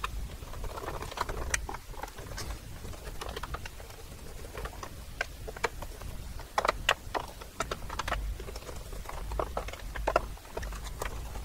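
Small screws and a hand screwdriver clicking and tapping against a metal computer chassis as the screws are fitted by hand, with irregular light clicks.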